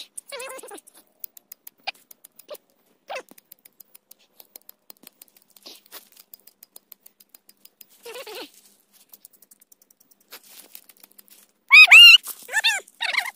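Dry leaves and twigs crackling and rustling as tinder is worked by hand to start a fire, with a few short animal calls. About twelve seconds in comes a run of loud calls, each rising then falling in pitch.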